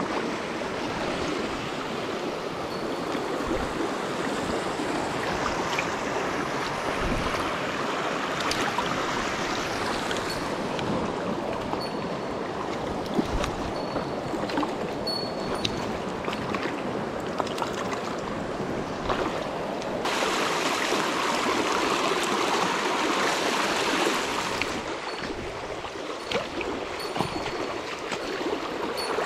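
Shallow, rocky stream rushing over stones: a steady wash of running water, turning brighter and a little louder for a few seconds about two-thirds of the way through. A few small sharp clicks come through near the middle.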